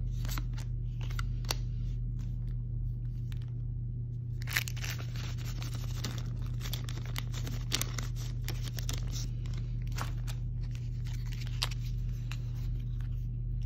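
Paper trading cards scraping and sliding against one another as a stack is handled and flipped through, with many small snaps and clicks, busiest in the middle. A steady low hum runs underneath.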